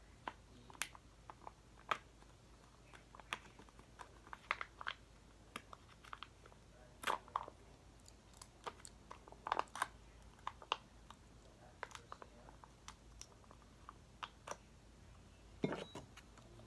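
Scattered small clicks and crinkles as a plastic applesauce container is handled and opened, irregular and faint.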